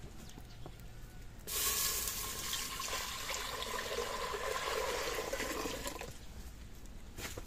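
Water poured from a plastic jug into a black pot over a wood fire: a steady splashing stream that starts suddenly about one and a half seconds in and stops about six seconds in.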